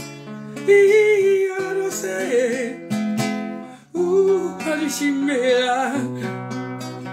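A man singing with a wavering, held voice, accompanied by guitar chords. There is a short break about four seconds in.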